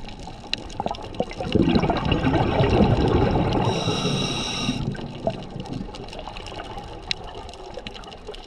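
Scuba diver's exhaled breath bubbling out of the regulator underwater, a surge of bubbling lasting about three seconds that ends with a brief buzzing tone. Scattered sharp clicks sound throughout.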